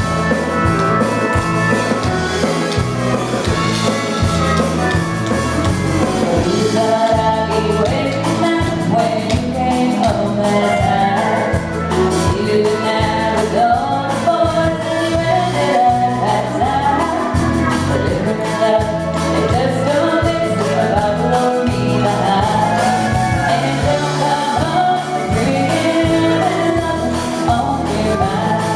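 A girl singing lead with a live country band, electric bass and drums keeping a steady beat behind her.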